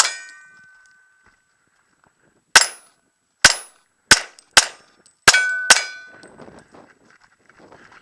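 About seven handgun shots, one at the start and six more spaced irregularly over a few seconds, several of them followed by the clear ring of a steel target that fades away.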